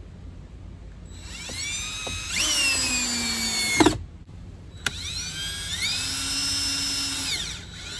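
Power drill driving screws through L brackets into the platform: the motor whine rises, holds while the screw goes in, and sags slightly under load, then stops with a clunk just before 4 seconds in. A second screw is driven a second later, with the whine rising and holding for a couple of seconds.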